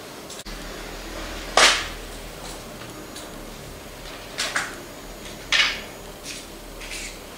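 A few short, sharp rustling clacks of small objects being handled close to the microphone. The loudest comes about one and a half seconds in, a quick pair follows around four and a half seconds, another strong one near five and a half seconds, and fainter ones after that. A low steady hum runs underneath from about half a second in.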